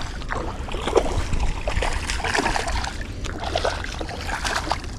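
Water splashing and sloshing in irregular bursts, with small knocks and clicks: a hooked fish thrashing at the surface of a creek as it is played and reeled in.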